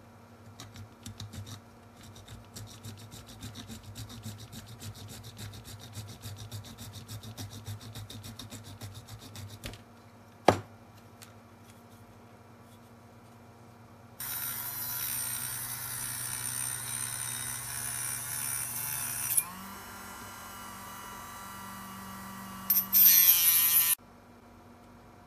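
Rapid scraping strokes of a hobby blade cutting into a soft plastic toy part, then a single sharp click. After that a mini rotary tool runs and drills into the plastic piece: loud and hissy at first, settling to a lower, steadier level, rising again briefly, then cutting off suddenly near the end.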